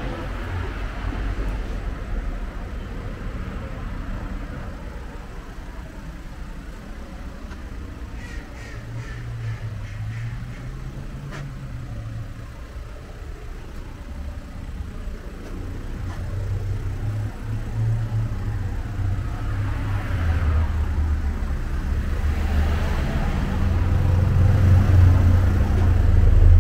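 Cars passing on the road, with a low engine rumble that grows louder near the end.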